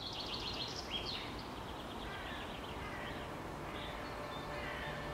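Small birds chirping and trilling in quick runs, over a steady outdoor background hiss. The calls are busiest in the first second and a half and scattered after that. A faint steady low hum comes in near the end.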